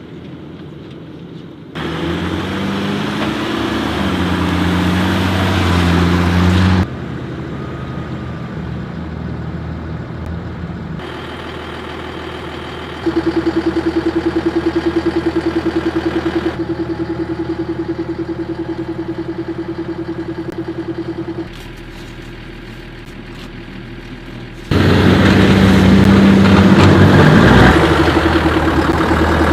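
Vehicle engines running across several abruptly cut shots, one with a steady hum, others with the pitch shifting as they rev.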